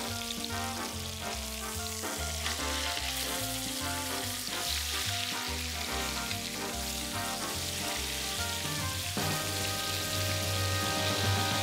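Thick New York strip steaks sizzling steadily as they sear in hot canola oil in a cast iron skillet. Background music with a steady bass line plays underneath.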